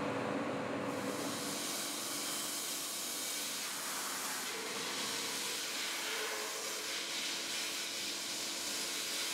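Compressed air hissing steadily from a hand-held blow gun blasting loose metal powder off a 3D-printed metal part. A faint machine hum sits underneath, and the hiss comes up about a second in.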